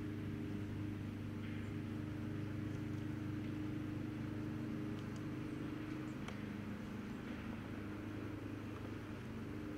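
A motor running steadily with a low, even hum, easing a little past the middle, with a few faint ticks about five and six seconds in.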